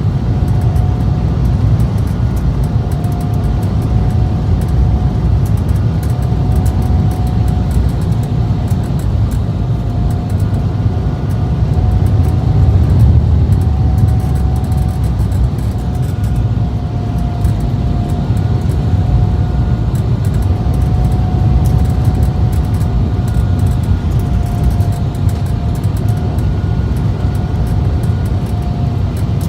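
Cabin noise of an Embraer E190 in flight: the GE CF34 turbofans and the airflow make a loud, steady rumble with a thin engine whine over it that wavers slightly in pitch. The rumble swells a little about halfway through.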